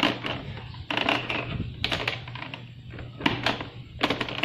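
Plastic body-panel clicks and snaps as hands press the scooter's front cover panel into place, a handful of sharp knocks spread irregularly over a few seconds, over a steady low hum.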